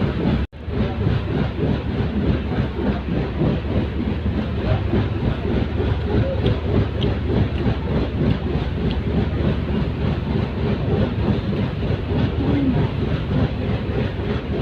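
Moving passenger train: a steady rumble with wheel clatter on the rails, broken by a brief dropout to silence about half a second in.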